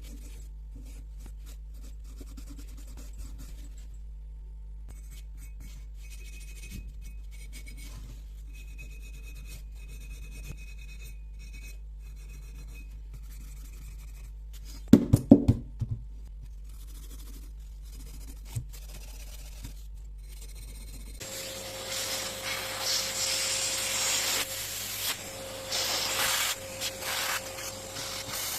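Faint hand rubbing and scraping on carburetor parts, with a short burst of loud knocks about halfway through. About three-quarters of the way in, a louder steady hiss with a constant humming tone starts.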